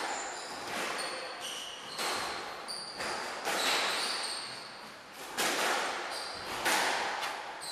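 Squash rally: the ball striking rackets and the front wall about once a second, each hit echoing around the court, with short high squeaks from shoes on the wooden floor between the hits.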